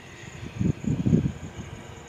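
Low rumble of highway truck traffic, swelling briefly about a second in.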